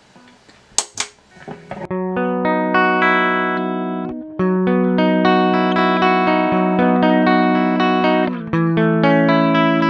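Electric guitar played through a Digitech RP1000 multi-effects preset. Two short, scratchy muted strums come first, then sustained, lightly distorted chords ring out from about two seconds in, with a brief break just past four seconds and a chord change near the end.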